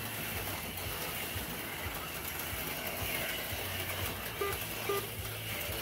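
HO-scale slot cars running steadily around a plastic slot-car track during a race, their small electric motors and wheels making a continuous mechanical whir.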